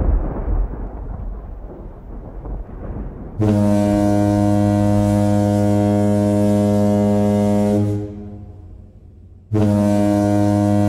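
A low rumble dies away, then a deep, steady horn blast sounds twice: one of about four and a half seconds, and after a short gap a second that starts near the end.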